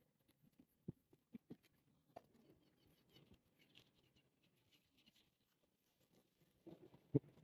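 Near silence with a few faint knocks and a soft scraping from a fillet knife working against a plastic cutting board as a tuna loin is skinned. A sharper knock comes near the end.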